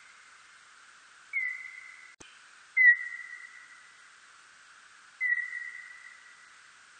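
Birdlike noctule bat calls brought down to audible pitch: three whistle-like calls, each starting with a slight downward slide, then holding one steady tone and fading out over about a second. They sit over a steady hiss, with a brief click between the first two.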